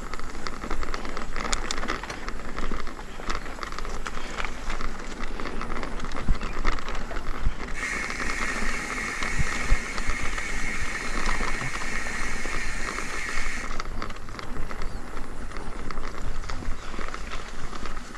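Mountain bike rolling over rough ground: the bike rattles with many small clicks and knocks over a steady low rumble. About eight seconds in, a steady high buzzing hiss starts suddenly and cuts off about six seconds later.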